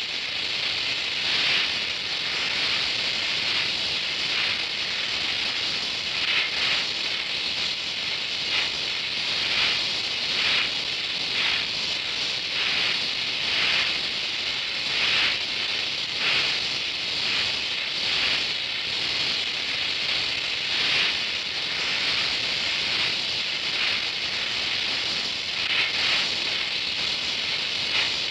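Oxy-acetylene welding torch flame hissing steadily, with irregular crackles and brief surges as the flame melts the steel weld puddle and filler rod.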